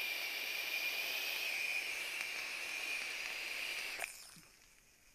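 Long direct-lung draw on a sub-ohm vape tank with a 0.3-ohm coil at 19 watts: a steady hiss of air pulled through the airflow and over the firing coil, with a faint whistle in it, cutting off about four seconds in.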